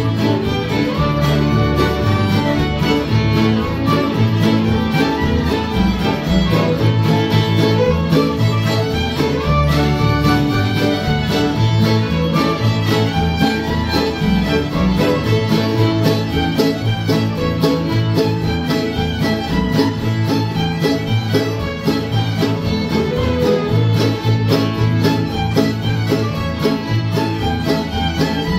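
Several fiddles playing a fiddle tune together, backed by a strummed acoustic guitar and a mandolin, in a steady, continuous ensemble.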